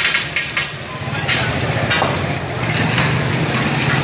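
Beaten egg frying on a hot flat steel griddle with a steady sizzle. There are a few sharp metal scrapes and clicks from the spatula, the first about half a second in, over a steady low hum.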